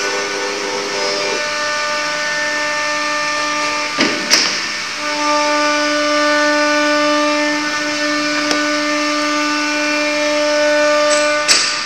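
CNC wood router at work: a steady hiss with a whine whose pitch jumps to a new level every few seconds as the stepper-driven axes change speed, and a few short sharp noises, about four seconds in and twice near the end.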